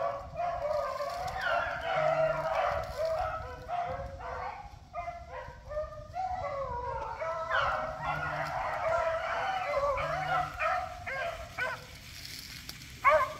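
A pack of beagles baying as they run a rabbit, many voices overlapping and wavering. The cry thins out briefly about halfway through and again near the end.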